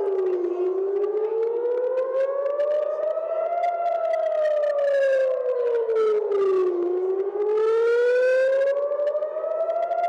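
Civil-defence air-raid siren wailing, slowly rising and falling in pitch, each climb and each drop taking about three seconds; it is the alarm for incoming rocket fire.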